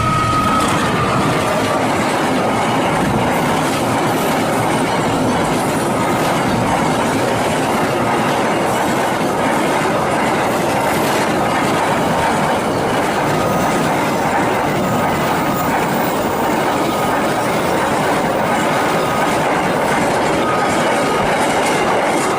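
A train hauled by a CC206 diesel locomotive passing at close range: a steady loud rush of wheels on rail with clickety-clack. The end of a horn blast trails off in the first second. Short faint squeals recur every second or two in the later part.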